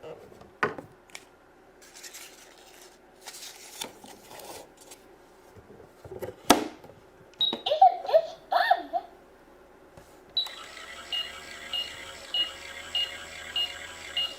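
Wooden play-food pieces click and knock, then a toy oven plays its electronic sounds: a few short chimes and voice-like bleeps, and from about ten seconds a steady baking tune with a beep repeating a little under twice a second.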